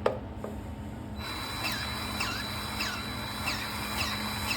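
A sharp click, then, about a second in, a DeWalt cordless power grease gun starts running: a steady motor whine with a falling squeak that repeats about every half second as it pumps grease into a pivot-pin grease nipple.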